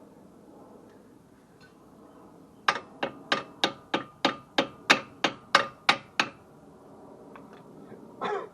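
A hammer tapping a new front brake pad into its caliper bracket: about a dozen sharp metallic strikes, roughly three a second, because the pad is too tight in the new bracket hardware to slide on by hand. A short clatter follows near the end.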